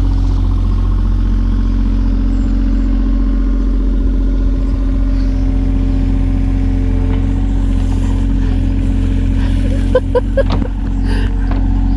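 Engine running at a steady speed, with a few short knocks or clanks about ten seconds in.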